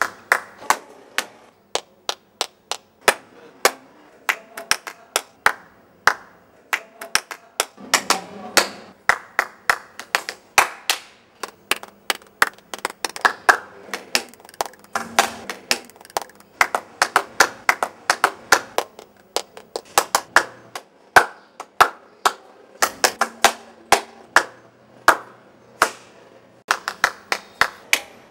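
Bare hands clapping: dozens of sharp single claps in an uneven, stop-and-start rhythm, sometimes in quick runs of several a second and sometimes with short pauses.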